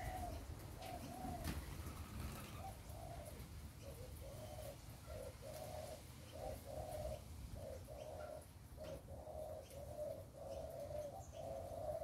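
Doves cooing: a long run of short, low coos one after another, coming almost without a break from about four seconds in.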